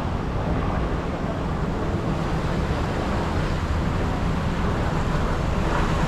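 Steady rushing noise of water running down the tube slides, with wind on the microphone.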